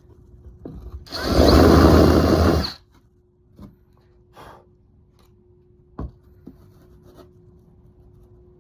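Power drill with a 1-inch hole-saw bit running in one burst of about a second and a half, cutting the leash-plug hole into the surfboard's foam. A few light knocks and clicks follow, with a faint steady hum underneath.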